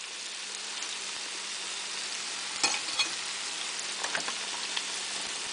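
Hush puppies deep-frying in a saucepan of hot oil, a steady sizzle, with a few light clicks of a metal slotted turner against the pan as they are lifted out.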